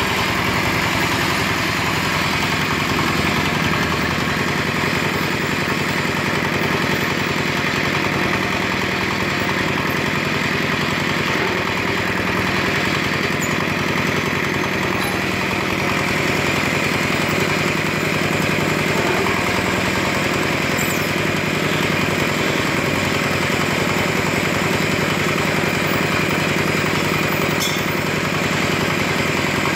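Engine of a concrete lift hoist running steadily at an even speed.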